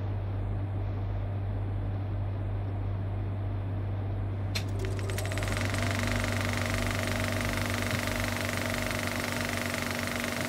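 A steady low drone. About four and a half seconds in, a hiss and several steady higher tones join it.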